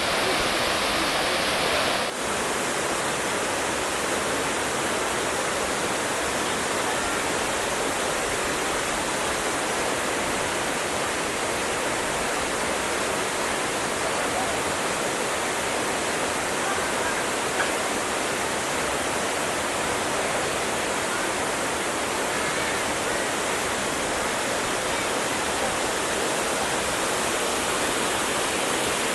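Korbu waterfall: a steady, full rush of falling water, with a brief dip and shift in tone about two seconds in.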